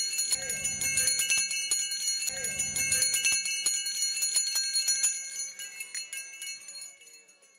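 Jingling bells shaken over and over, with a low beat about every two seconds at first, fading out to nothing over the last two seconds or so.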